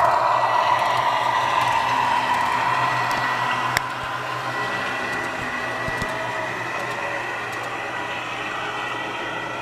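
Model Burlington Zephyr train running on the layout track: a steady whir of motor and wheels with a thin whine, growing quieter as it moves away. A single sharp click about four seconds in.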